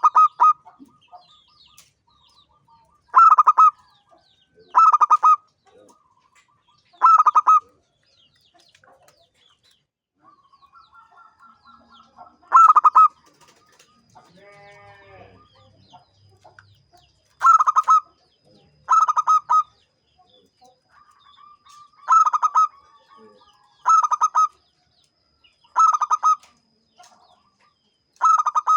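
Zebra dove (perkutut) singing: short bursts of rapid, trilled coos repeated every couple of seconds, with a pause of several seconds in the middle.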